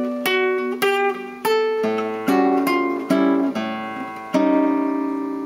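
Nylon-string guitar played chord-melody style: a run of about ten plucked chords and single notes roughly half a second apart, moving an inner voice through an A7 chord (13th, sharp 5th, 5th, flat 5th). The last chord is plucked a little over four seconds in and rings out, slowly fading.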